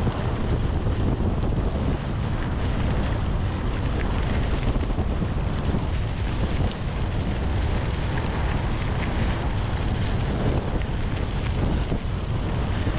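Wind buffeting the microphone of a camera on a moving bicycle: a steady, heavy low rumble of noise.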